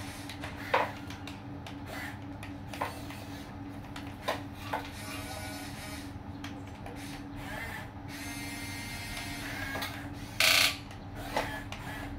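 Huina 1550 RC excavator's small electric motors whirring steadily as the arm and bucket move, with scattered light knocks and one short, loud clatter near the end.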